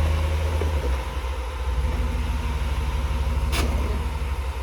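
Jeep Wrangler engine running at low revs while rock crawling, easing off briefly about a second in and picking up again. A single sharp knock comes about three and a half seconds in.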